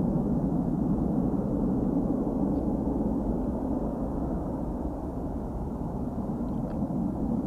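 A McDonnell Douglas DC-9-33F's twin Pratt & Whitney JT8D-9 turbofan engines running at takeoff power as a steady, low, even roar.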